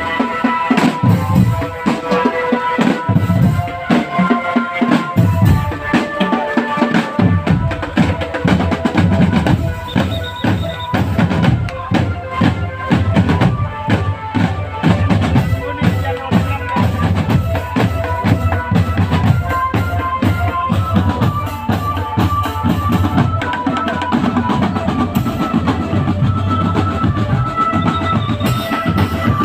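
Loud dance music with a busy drum beat and heavy bass, played through a large carnival sound system. The deep bass fills in strongly about seven seconds in.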